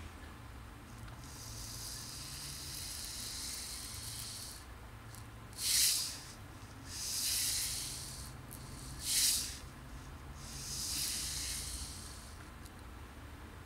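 Five separate bursts of high-pitched hissing: a long one of about three seconds, then four shorter ones, the second and fourth being short, sharp and the loudest.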